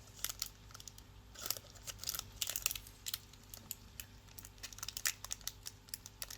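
Irregular light crinkling and clicking of small plastic kit packaging and trays being handled.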